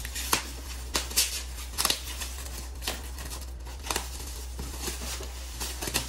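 Gift-wrapping paper being unpeeled from its tape and torn off a box, with a string of sharp rips and crinkles at irregular intervals, loudest in the first two seconds.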